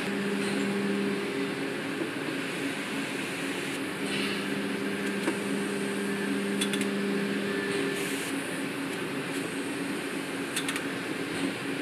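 Steady hum of factory machinery on an engine-block assembly line. A louder steady motor tone comes on briefly near the start and again for about four seconds from the middle, with a few light clicks.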